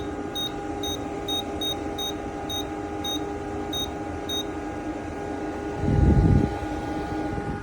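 Small portable evaporative air cooler running with a steady fan hum, while its control panel gives about a dozen short high beeps at uneven intervals over the first few seconds, as its buttons are pressed. A single loud low thump comes about six seconds in.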